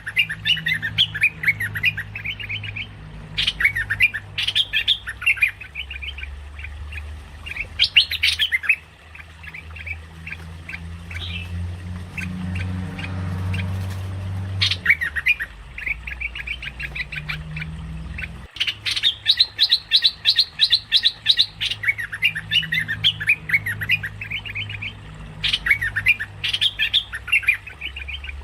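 Merbah lekir bulbul calling in bouts of rapid, loud chattering notes, used as a lure call. The calling breaks off for a few seconds in the middle, leaving only a low hum, and then starts again.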